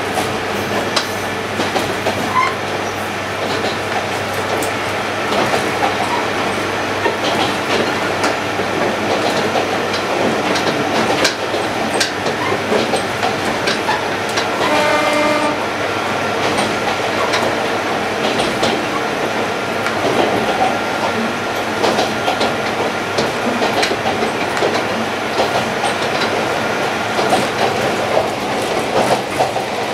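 Steady running noise from inside a moving Kominato Railway diesel railcar, with the wheels clicking over rail joints. A brief pitched tone sounds about halfway through.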